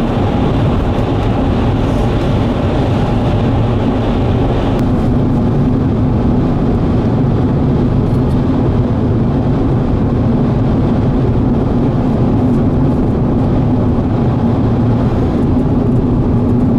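Steady, loud noise of a vehicle on the move: engine and road noise with a steady low hum, with a few faint clicks near the end.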